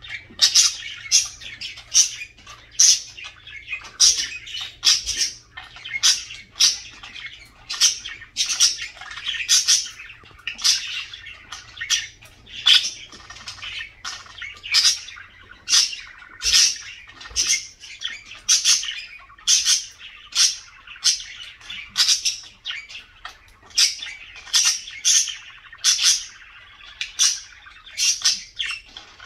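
Budgerigar chirping and warbling: sharp, loud chirps about once or twice a second over a continuous chatter. This is the chatter of a happy, contented budgie.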